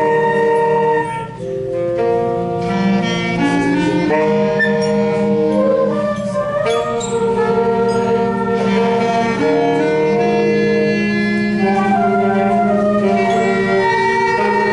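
A student band of wind instruments playing a piece in held notes and chords, the melody moving every second or so.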